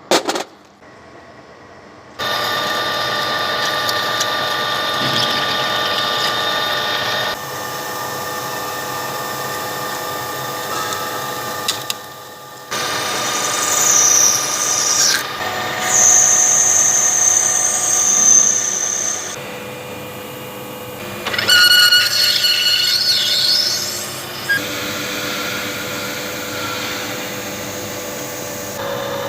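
Manual lathe running with a steady gear whine while turning 2-inch nylon stock, heard in several short takes that start and stop abruptly. Twice the cutting tool gives high, wavering squeals on the nylon. A sharp click comes right at the start.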